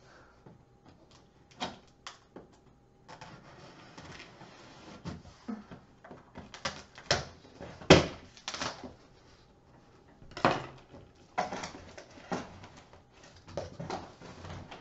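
Large cardboard box being opened and handled: irregular knocks, rubs and scrapes of cardboard, with the loudest thump about eight seconds in.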